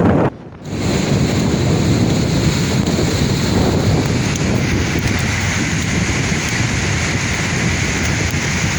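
Sea waves surging and breaking, with strong wind buffeting the microphone. The sound drops out briefly just after the start, then carries on steadily.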